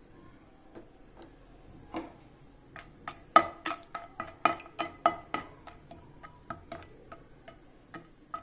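A spoon stirring whole spices in oil in a non-stick kadai, knocking and scraping against the pan. The clicks come a few at a time at first, then quickly, about four a second, through the middle, and thin out near the end.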